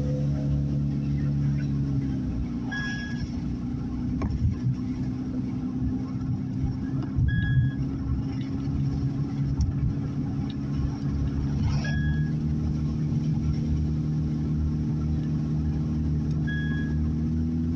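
Car engine hum and tyre-on-road noise heard from inside the cabin while driving, the engine's pitch shifting about two seconds in and again near the end. A short high beep sounds four times, roughly every four to five seconds.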